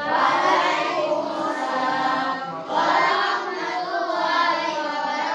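A class of children singing together in unison, in two phrases with a short break about two and a half seconds in.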